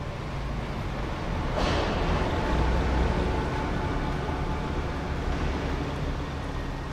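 Low, steady rumbling drone that swells into a rushing whoosh about a second and a half in, then slowly eases back.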